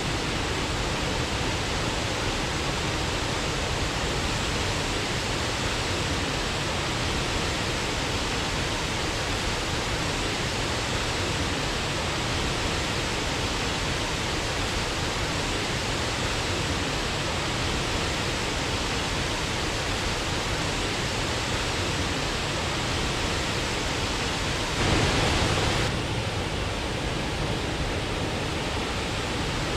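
Waterfall rushing in a steady, unbroken roar of falling water. Near the end it swells briefly for about a second, then the rush carries on a little duller.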